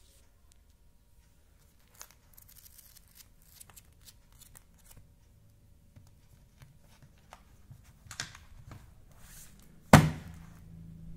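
A plastic-wrapped pack of archival negative sleeve sheets handled and turned over, the plastic rustling and crinkling in short bursts, with one loud thud near the end as the pack is set down.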